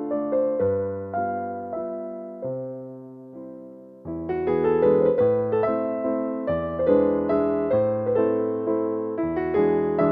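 Background piano music: a gentle passage of struck notes that thins and fades, then picks up fuller and louder about four seconds in.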